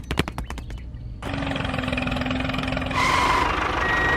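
A few quick clicks, then a miniature construction vehicle's motor starts running about a second in, with a steady hum. Near the end, short repeated reversing beeps begin.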